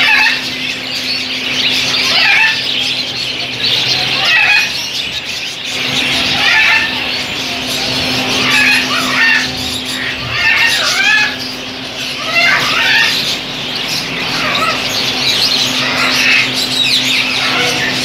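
Many caged parrots and smaller birds calling together, sharp squawks and chirps coming every second or two, over a steady low hum.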